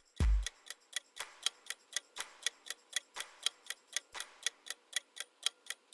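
Countdown timer sound effect ticking evenly, about four ticks a second. A thumping music beat cuts off in the first half second.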